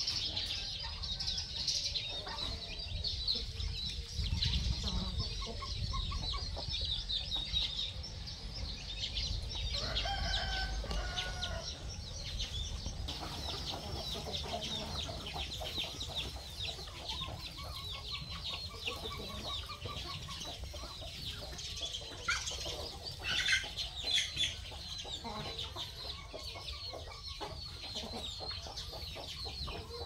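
A backyard flock of chickens clucking, with a rooster crowing, over a steady high chatter of small calls.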